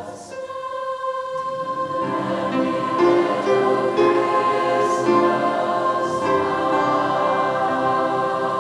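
Large mixed high school choir singing held chords with grand piano accompaniment. The sound thins briefly at the start, then swells fuller and louder about two seconds in.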